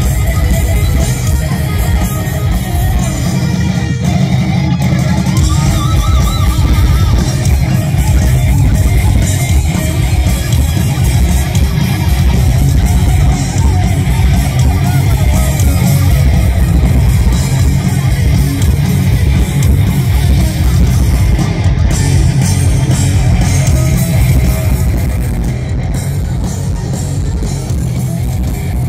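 Live heavy metal band playing loudly: a distorted electric guitar lead with wavering, bent notes over heavy bass and drums. It is heard from within a stadium crowd.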